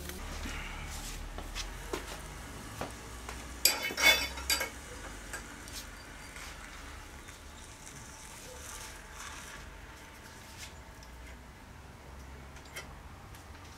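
Metal clamps clinking and clanking as they are fitted onto a stack of epoxied timber laminations during a glue-up. There is a quick cluster of sharp clanks about four seconds in, then scattered lighter clicks.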